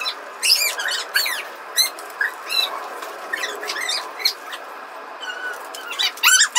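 High-pitched squeaks and chirps from a small animal: short calls that slide up and down in pitch, coming at irregular intervals, with a louder group of calls near the end.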